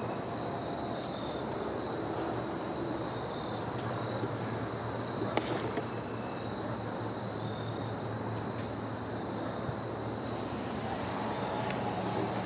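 Crickets chirping steadily in a high, pulsing trill, about two pulses a second, over a low steady hum, with a faint click about five seconds in.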